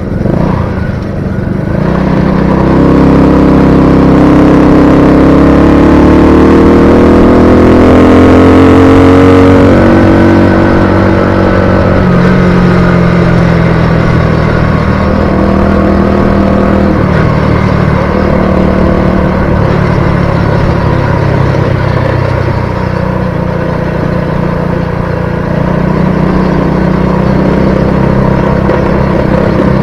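Automatic Honda 50 cc engine on a motorized bicycle running hard under way, its pitch climbing over the first several seconds as it speeds up, then holding with small rises and falls.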